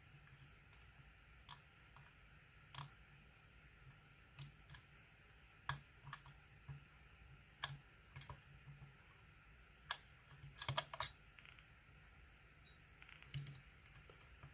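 Small metal clicks from a flag pick working the dimple pins of a DOM ix 10 lock under light tension: pins being lifted and setting at the shear line. The clicks are faint and irregular, with a quick cluster about three quarters of the way through.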